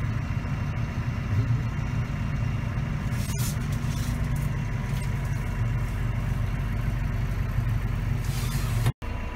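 Diesel tractor engines running steadily, heard from inside a tractor cab as a low, even drone. There is a single click about three seconds in, and the sound drops out for an instant near the end.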